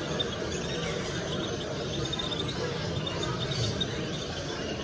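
Bird-show hall ambience: many small cage birds chirping and squeaking in short high notes over a steady murmur of visitors' chatter.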